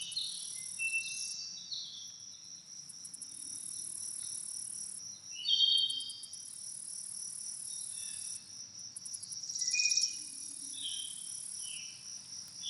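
Crickets and grasshoppers chirring in a continuous high-pitched chorus, with pulsed trills that start and stop every few seconds. Birds sing short chirps and whistled notes over the top.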